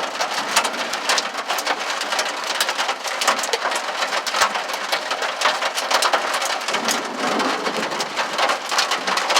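Heavy rain mixed with hailstones pelting down: a dense steady hiss studded with many sharp ticks of hail striking hard surfaces.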